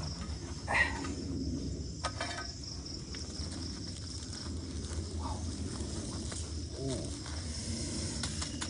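A steady chorus of night insects such as crickets, with soft intermittent scraping and rustling as gloved hands dig soil out of a cooking pit. A short rising sound about a second in is the loudest moment.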